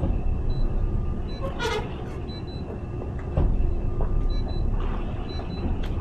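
Low, steady rumble of a boat's engine idling, with a short squeal about two seconds in and a knock about three and a half seconds in.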